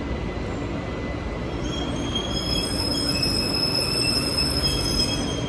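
BTS Skytrain electric train pulling into an elevated station platform, its steady rumble on the rails joined about two seconds in by thin, high squealing tones from the wheels and running gear.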